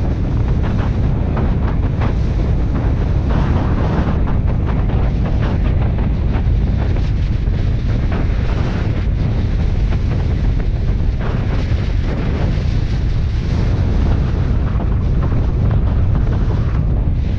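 Wind buffeting the microphone of a camera mounted on the outside of a moving 2003 Subaru Forester: a steady deep rumble with constant crackling gusts and no clear engine note.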